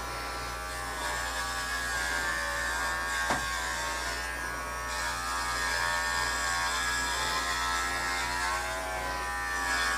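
Cordless electric dog clippers running with a steady buzz while being worked through a dog's thick curly coat, with a brief click about three seconds in.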